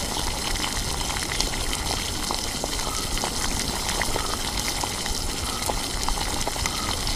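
Crab curry boiling in a wide metal kadai: steady bubbling with many small pops.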